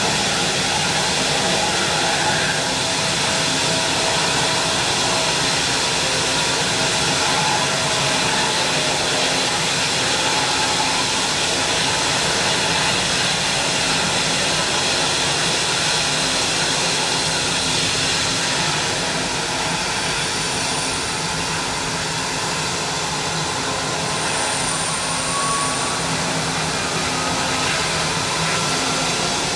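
Boeing 777-200ER's twin jet engines running steadily: an even rushing noise with a steady whine. A faint tone rises in pitch over the last few seconds.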